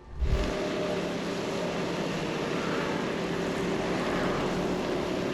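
Steady rushing noise of riding in an open vehicle: wind and road noise with a faint engine drone under it. It starts abruptly with a low buffet.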